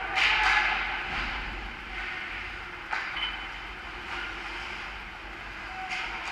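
Ice hockey play: skate blades scraping and carving on the rink ice, with a few sharp knocks just after the start, about three seconds in and near the end. It is loudest just after the start.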